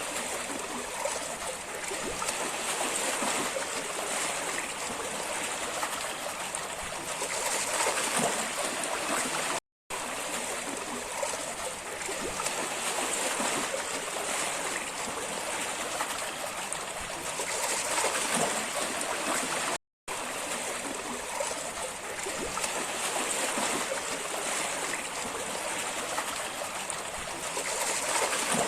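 Water rushing and splashing, a steady noisy wash, cut off to silence for a moment twice, about ten and twenty seconds in.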